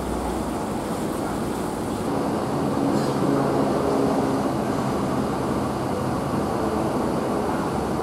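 Hino RK8 coach on the move: a steady engine hum over road and tyre noise, the engine note growing a little stronger about two seconds in.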